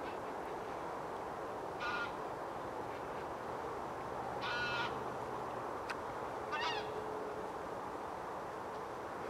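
Three short, harsh animal calls about two seconds apart, the middle one the longest and loudest, over a steady background hiss.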